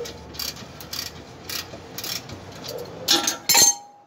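Ratchet wrench clicking in short strokes about twice a second while loosening the old rear shock absorber's bottom mounting bolt on a van, with two louder metallic clacks about three seconds in before it stops.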